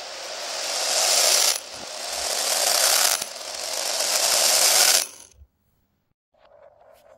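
Played backwards, plastic pearl beads clattering as they spill and scatter across a wooden floor: three swells of dense rattling, each building up and then cutting off abruptly.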